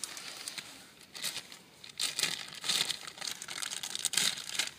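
Clear plastic bag crinkling and rustling in irregular bursts as new car-seat harness straps are pulled out of it.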